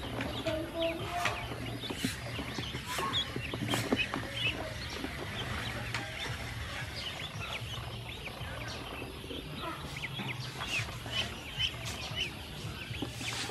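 A group of ducklings peeping continuously in many short, high chirps, with scattered small clicks and splashes of water, over a steady low hum.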